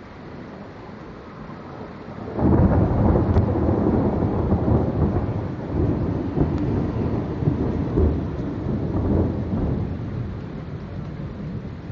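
Thunder: a loud clap comes in suddenly about two seconds in and rumbles on for several seconds with swells, slowly fading, over a steady hiss of rain.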